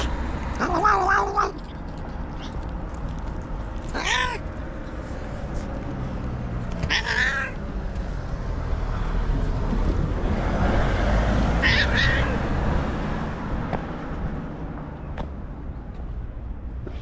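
White cat meowing four times: a longer call about a second in, then three shorter ones a few seconds apart. A steady low rumble runs underneath.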